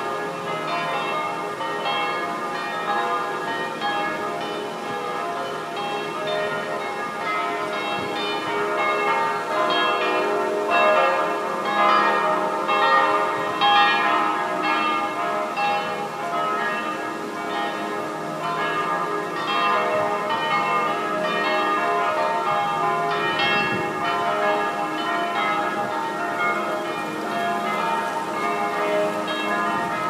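Church bells pealing, several bells ringing together in a continuous stream of overlapping strokes.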